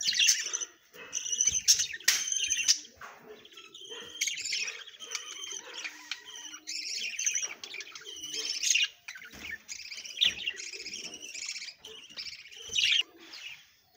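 Caged budgerigars chattering and chirping without pause, a busy run of quick high chirps with a few sharp clicks in the first few seconds.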